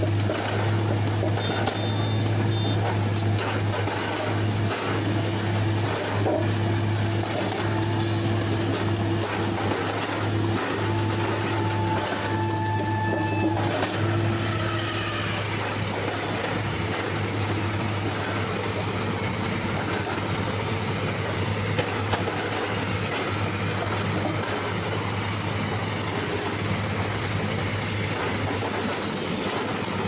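Engine of a crawler-mounted track-laying machine running steadily as it lays concrete sleepers, with a constant low hum and a short higher tone about twelve seconds in.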